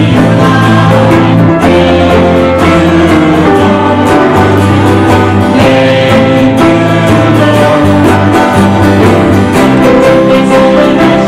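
Christian worship music: guitar over held bass notes that change every second or two, with voices singing.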